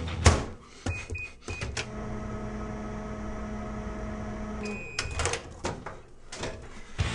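Microwave oven in use: short keypad beeps, then the oven hums steadily for about three seconds and stops with a longer beep, followed by clicks and knocks of the door and handling.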